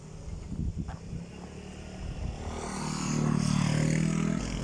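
A motor vehicle's engine passing on the road, growing louder from about two seconds in and loudest near the end.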